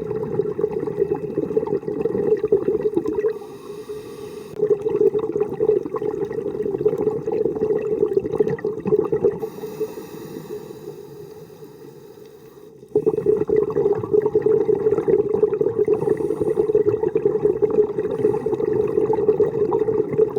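Underwater sound of a scuba diver's regulator: breathing and the rush and gurgle of exhaled bubbles. It eases off twice and comes back abruptly about 13 seconds in.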